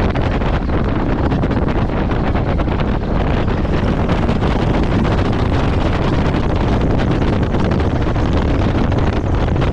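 Wind buffeting the microphone: a loud, steady rumble and hiss that does not change.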